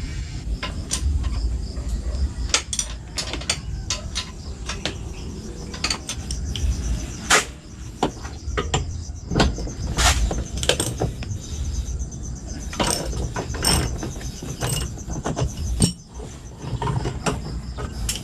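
A wrench loosening the scooter's exhaust mounting bolt: irregular sharp metallic clicks and clinks of the tool on the bolt, with a low handling rumble under them.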